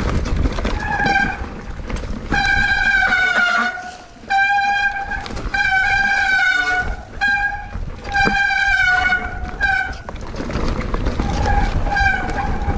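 A horn with a single steady pitch sounded in repeated blasts of varying length, about nine in all, some short toots and some held for over a second, over a low rumble.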